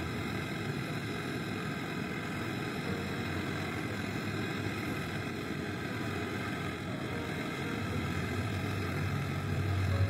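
Gas brazing torch flame burning steadily with an even rushing hiss while a copper refrigerant line is brazed onto a refrigerator compressor's tube stub; a low hum grows a little stronger near the end.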